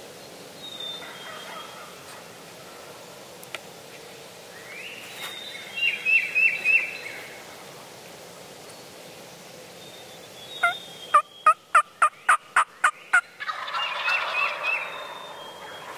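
Wild turkey gobblers gobbling, a rattling gobble about five seconds in and another near the end. Between them comes a loud run of about eight evenly spaced hen-style yelps, roughly three a second.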